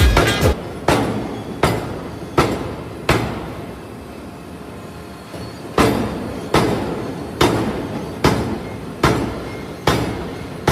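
Heavy hammer blows striking metal during forging, each with a short ringing decay. Four blows at a little more than one a second, a pause of a few seconds, then a steady run of about seven more at the same pace.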